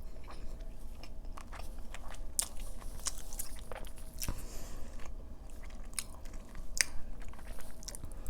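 Close-up mouth sounds of a person chewing a mouthful of burrito: wet smacks and small crunchy clicks at an irregular pace.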